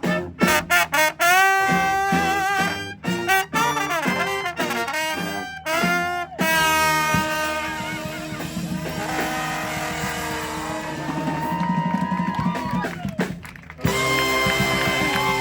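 Street brass band playing: a run of short punchy notes, then a long held chord that slowly fades. Near the end it jumps suddenly to a louder, fuller sound.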